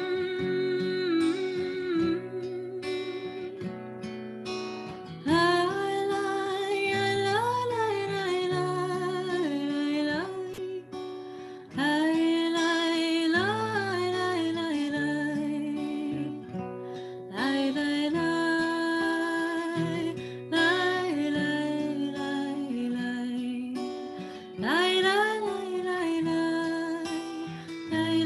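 A slow song: a solo voice singing long, gliding phrases over acoustic guitar accompaniment.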